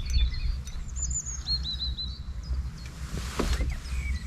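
Small birds chirping and singing in short repeated notes, over a steady low rumble. A brief noisy rush comes a little after three seconds in.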